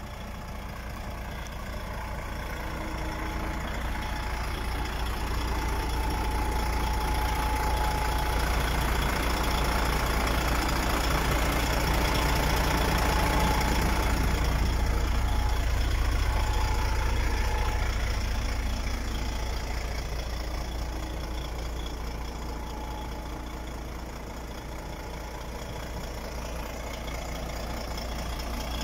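DAF XF 105.410 truck's PACCAR MX 12.9-litre six-cylinder diesel idling steadily. It grows louder toward the middle, when heard up close beside the cab and engine, then fades again.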